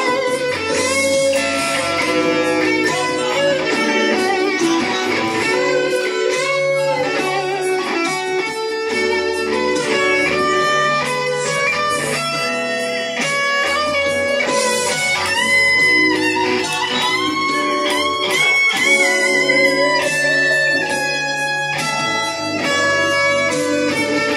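Telecaster-style electric guitar playing a tune: a steady run of ringing notes with low notes underneath.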